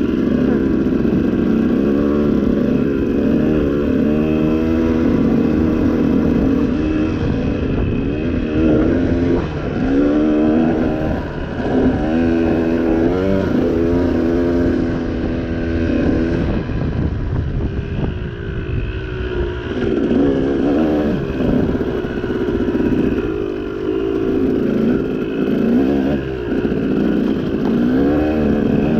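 Dirt bike engine revving up and down over and over, its pitch climbing and dropping every second or two as the throttle is worked.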